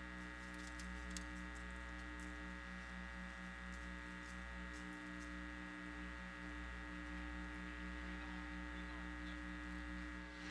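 Faint, steady electrical hum and buzz, with a low pulsing throb about three times a second and a few faint ticks early on. No race engines stand out.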